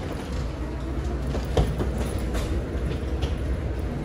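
Steady low rumble of airport boarding-gate background noise, with a few short knocks, the loudest about one and a half seconds in.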